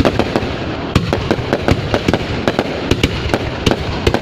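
New Year fireworks bursting in a continuous barrage: many sharp bangs at irregular intervals, several a second, over a steady rumble of further blasts.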